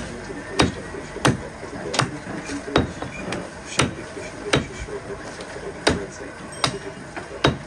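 A butcher's cleaver chopping goat rib meat on a wooden log chopping block: about ten sharp, evenly paced chops, one every 0.7 seconds or so.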